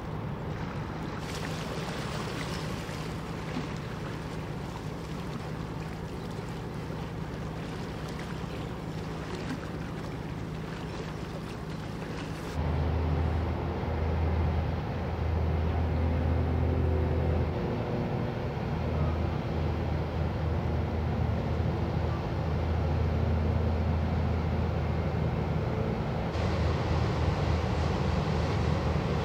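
A ship passing close by: a steady low hum with rushing water and wind on the microphone. About 13 s in, a louder, deep engine drone sets in with the wash of a coastal tanker's bow wave, swelling and easing in long stretches.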